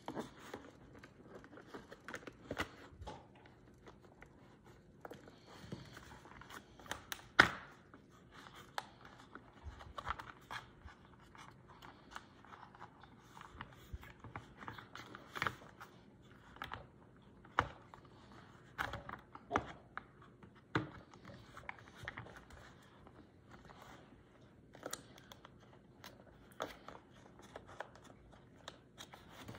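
Hard plastic parts of a toy spin-art machine being handled and fitted back together: scattered clicks, knocks and scrapes, the loudest a sharp knock about seven seconds in.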